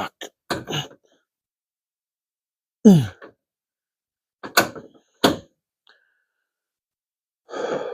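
A man's low sigh or groan falling in pitch, then two short thunks a little over half a second apart, and a breathy sound near the end.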